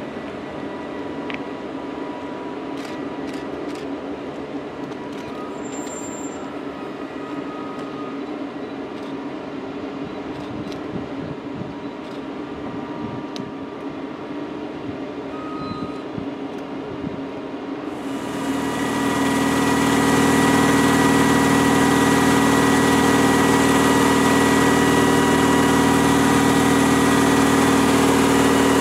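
SNCF CC 6500-class electric locomotive CC 6558 hauling coaches slowly through a station: a steady hum with scattered clicks from the wheels on the track. About two thirds of the way through, the sound cuts suddenly to a louder, steady hum with a high tone, heard inside the locomotive's machine room with its equipment running.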